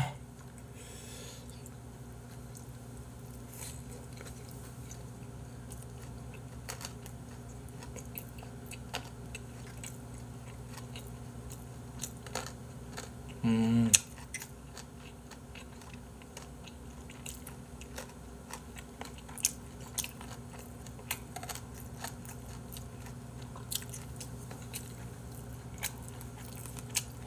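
A person chewing and biting into bossam, boiled pork slices, close to the microphone, with scattered soft clicks over a steady low hum. A short vocal sound comes about halfway through.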